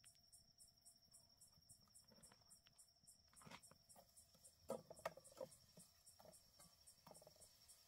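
Crickets chirping in a steady pulse, about five chirps a second, over a thin, steady high tone. From about three and a half seconds in, a metal spoon scrapes and taps in a metal frying pan as herbs are stirred, loudest around the fifth second.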